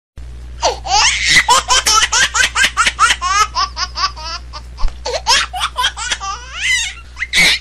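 High-pitched laughter added as a sound effect in the edit: a rapid run of short rising giggles, about five a second, with a couple of brief breaths before a last louder burst near the end.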